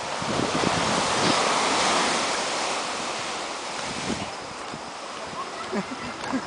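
Ocean surf breaking on the beach below, a steady rushing that swells over the first two seconds and then eases. A few soft low thumps are heard with it, near the start and near the end.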